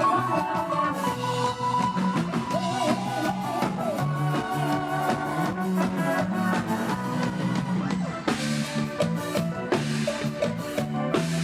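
Live band music in Isan style: drum kit and bass keep a steady beat under a wavering melodic lead. Cymbal crashes come in thickly about eight seconds in.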